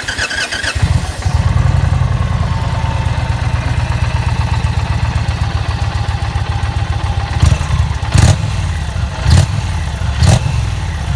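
2020 Indian Challenger's 108-cubic-inch PowerPlus V-twin, stock exhaust, cranked on the starter and catching about a second in, then idling with a deep rumble. In the second half the throttle is blipped several times in quick revs.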